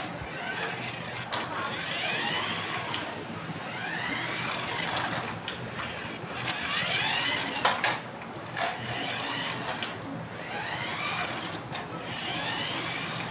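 Remote-control toy car's small electric motor and gears whining, the pitch sweeping up and down again and again as it speeds up and slows. A sharp knock comes a little past the middle.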